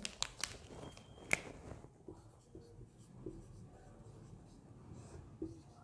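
Marker pen writing on a whiteboard: faint strokes. A few sharp clicks come in the first second and a half.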